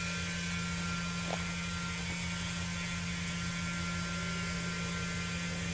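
Septic vacuum truck's pump running with a steady, even hum while it sucks out a septic tank that is nearly empty.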